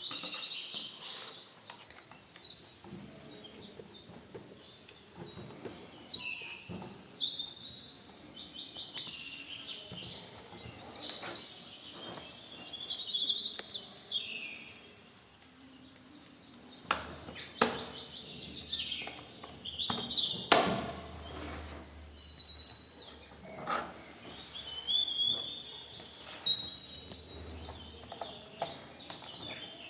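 Small birds chirping and singing in short, high trills and gliding notes, with a few sharp clicks now and then.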